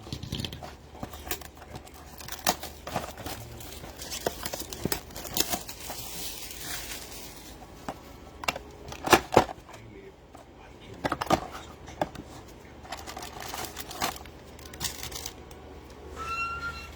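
A trading-card blaster box and its foil packs being opened: crinkling and tearing of wrappers and scattered clicks and rustles as the cards are handled. A brief high squeak sounds near the end.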